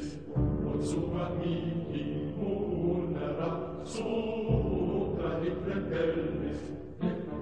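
Background music of chanted singing, voices holding long notes in phrases, with new phrases starting about half a second and four and a half seconds in.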